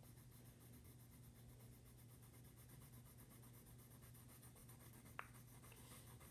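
Faint scratching of a red colored pencil shading lightly on paper, over a low steady hum, with one short click about five seconds in.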